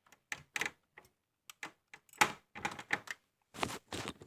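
Plastic clicking and rattling as a DDR3 memory stick is lined up and pressed into a motherboard's memory slot, in irregular bursts of short clicks that come thicker after about two seconds.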